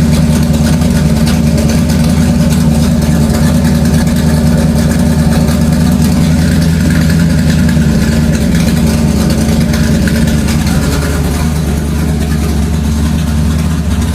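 Motor engine running loudly and steadily at a constant speed, easing off slightly near the end.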